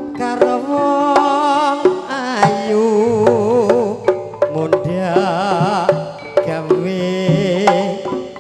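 Live Javanese campursari music: sharp hand-drum strokes over pitched melody notes, with a strongly wavering vibrato melody line through the middle.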